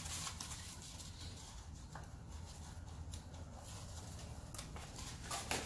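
Faint scattered rustles and small clicks of hands handling wet tint film on a car light, over a low steady hum, with one sharper click near the end.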